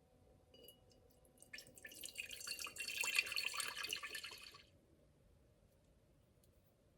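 Water running from a kitchen tap for about four seconds, building up and then cutting off sharply.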